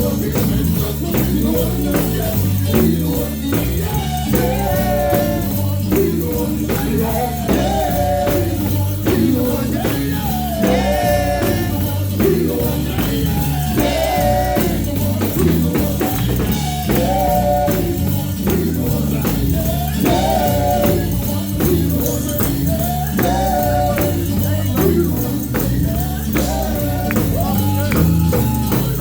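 Live gospel band music: a steady percussion beat over bass, with short melodic phrases recurring every few seconds and voices singing.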